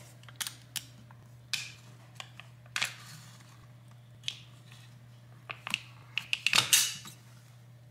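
Scattered small clicks, taps and crinkles of hands handling an iPad and a crumpled silvery sheet at its edge, with a denser rustle about six and a half seconds in. A steady low hum runs underneath.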